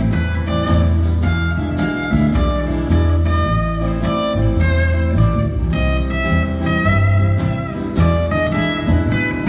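Instrumental passage of a folk song played live on two acoustic guitars, strummed and picked, over plucked upright double bass notes.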